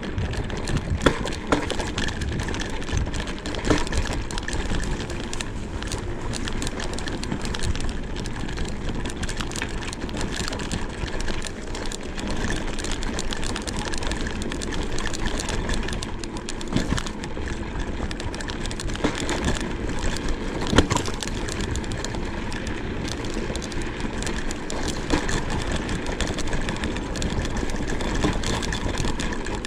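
Joyor Y6S electric scooter riding over a sandy forest dirt track: a steady rumble of tyres on rough ground, with scattered sharp knocks and rattles as it hits bumps, the loudest about two-thirds of the way in.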